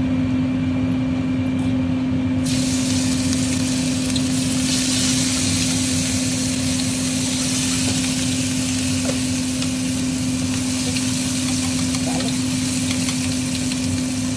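Minced garlic sizzling in hot oil in a wok, stirred with chopsticks; the sizzle starts about two seconds in and grows fuller a couple of seconds later, then holds steady. A steady low hum runs under it.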